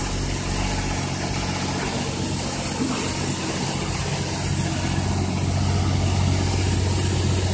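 Oasis Monsoon touchless car wash running: a steady low motor hum from its pump under a constant hiss of water spray, growing a little louder about five seconds in.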